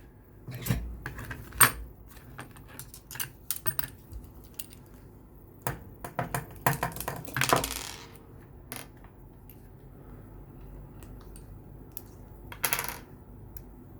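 Small metal clicks and clinks from an Abus disc detainer padlock and its picking tools being handled, with a longer metallic scrape about halfway through and another near the end.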